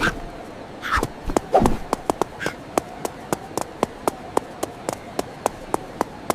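Quick, evenly spaced footstep taps, about four a second, as cartoon characters walk. A few short voice-like squeaks in the first two seconds.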